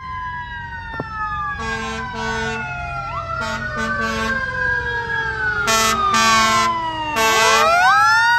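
A fire tanker's Federal Signal Q2B mechanical siren winds slowly down for most of the stretch, swoops up briefly about three seconds in, then winds back up near the end. Repeated short blasts of air horns cut over it, mostly in pairs, growing louder as the truck approaches.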